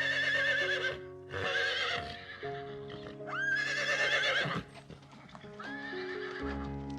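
Horse whinnying four times, each call a shrill, quavering neigh, the last one weaker, over background music.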